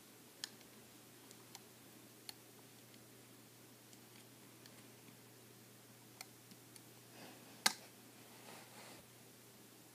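Scattered faint clicks of a pick and rubber bands against a plastic Rainbow Loom as bands are hooked and pulled over the pegs, with one sharper click a little under eight seconds in and soft rustling around it.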